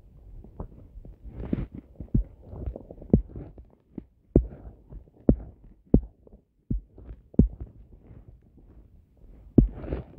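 Irregular dull knocks and thumps, about ten of them, over a low rumble.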